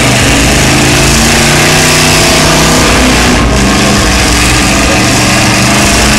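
Demolition derby car engines running loudly and steadily, under a heavy rushing noise.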